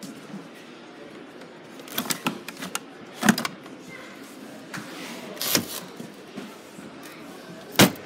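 A few sharp clunks and knocks, the loudest about three seconds in and just before the end, over a steady background hiss.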